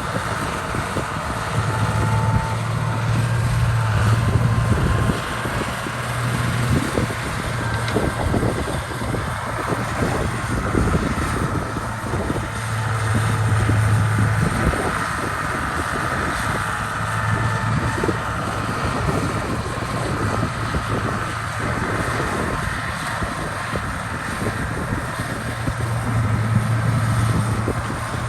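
Diesel engine of heavy construction machinery running under a working load, its low hum swelling and fading every few seconds over a steady rough clatter.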